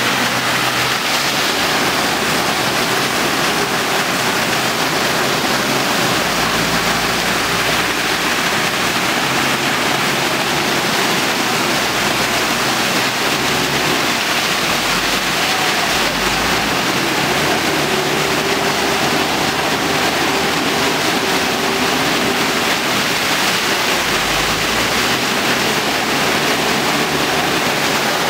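Steady, loud rush of heavy monsoon rain and muddy floodwater.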